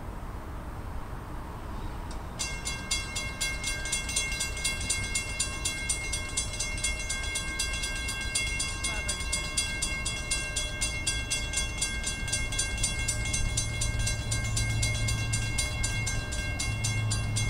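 Grade-crossing warning bell ringing in rapid, evenly spaced strokes, starting about two seconds in, as the signal activates for an approaching train. In the last few seconds the low rumble of the oncoming CSX ES44AH diesel locomotive builds beneath it.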